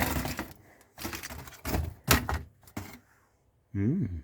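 Hard objects being handled and knocked together while rummaging through stored electronic spares: several sharp clacks, then a short hummed voice sound near the end.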